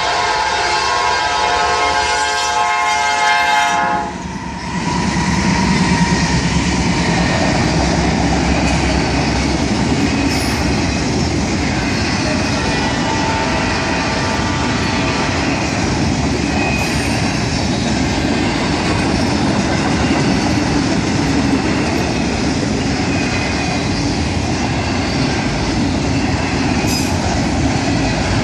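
Norfolk Southern freight train's air horn sounding a chord of several tones, which cuts off about four seconds in. The train then passes close by, a long string of autorack cars rolling past with steady, loud wheel-on-rail noise.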